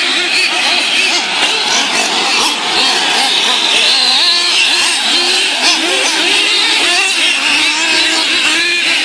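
Small racing engines running hard, their pitch rising and falling as they rev and ease off, with more than one engine heard at once.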